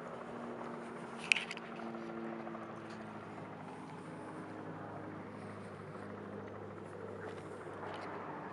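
A vehicle engine running steadily, with a single sharp click about a second in.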